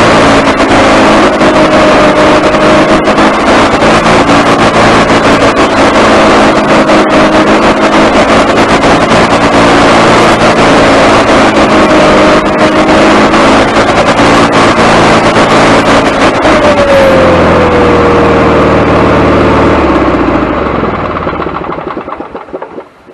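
Wood-Mizer LT40HD sawmill's gasoline engine running steadily, fed from a temporary fuel tank, then slowing with a falling pitch about seventeen seconds in and running down to a stop near the end. The owner takes it to be getting too little fuel at the carburetor.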